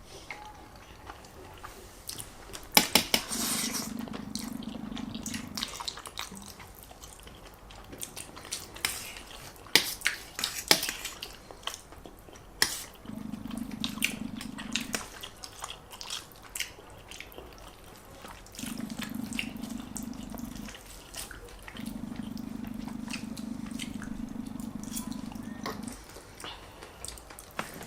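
People eating spaghetti and meatballs close to the microphone: wet chewing and sharp clicks and taps of utensils, with a low steady hum that comes and goes in stretches of a few seconds.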